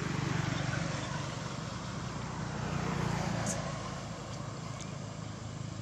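Road traffic passing: a steady rush of vehicle noise that swells just after the start and again around three seconds in.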